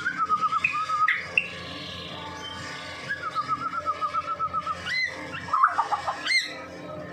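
White-rumped shama (murai batu) in full, nonstop song ("gacor"): two runs of quick repeated chattering notes, broken by sharp upward-sweeping whistles, with a brief flurry of notes about five and a half seconds in.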